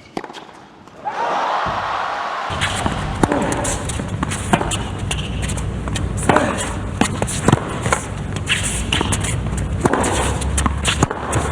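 Tennis rally: rackets striking the ball in sharp pops, repeating roughly every second, over a steady background noise and a low hum that set in during the first few seconds.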